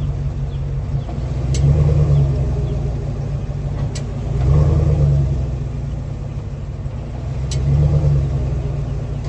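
2023 Chevrolet Silverado pickup driving, its low road and drivetrain rumble swelling and easing three times. A sharp tick comes three times, every few seconds: the ticking noise that the owner traces to the rear end.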